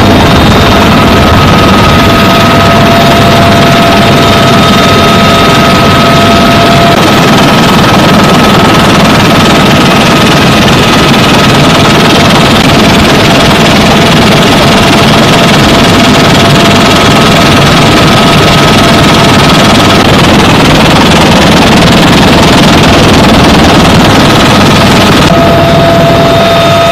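Helicopter in flight heard from inside the cabin: a loud, steady rush of rotor and engine noise with a steady high turbine whine over it.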